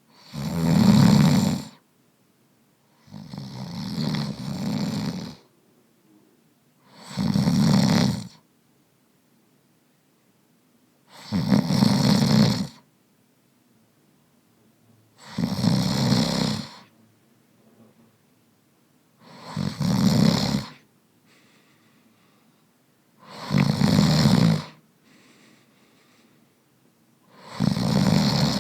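A man snoring steadily: eight snores about four seconds apart, each lasting a second or two, with near quiet between them. The second snore is longer and softer than the rest.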